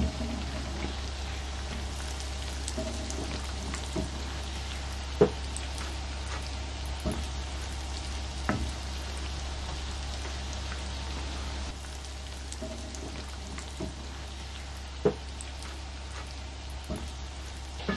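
Breaded bread pockets deep-frying in hot oil in a pan: a steady sizzling hiss, with a few sharp clicks along the way.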